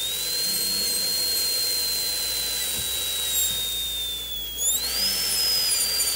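High-speed dental handpiece (dental drill) running with a steady high whine and a hiss, cutting a bevel into the tooth's enamel at the margin of a class IV cavity. Its pitch sags slightly about four seconds in, then jumps up and holds.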